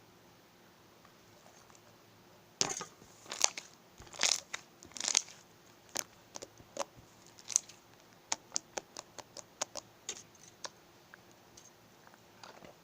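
Slime being squeezed and poked by hand, making a run of sharp pops and clicks that starts about two and a half seconds in, comes faster in the middle and thins out near the end.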